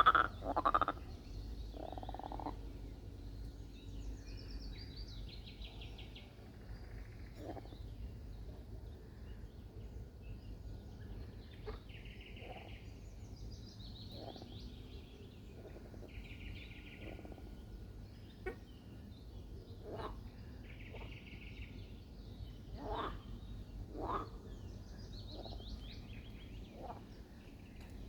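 Frogs croaking: short croaks every second or two, loudest right at the start, with higher rattling pulsed calls now and then, over a steady low rumble.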